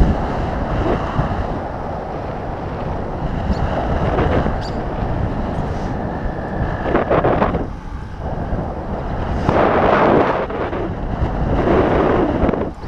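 Wind buffeting the microphone of a camera moving along a road: a steady rush with a low rumble that swells in gusts about seven, ten and twelve seconds in.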